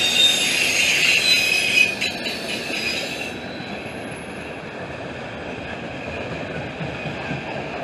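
Freight train cars rolling past, with a continuous rumble of steel wheels on rail. High-pitched wheel squeal rings over the rumble for about the first three seconds, then dies away, leaving the rumble.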